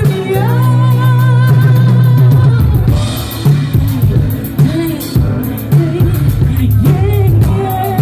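Live band with a male singer, drum kit and electric guitar. A long held note over a sustained bass note in the first two or three seconds, then the drums and band carry on under the vocals, with the voice coming up again near the end.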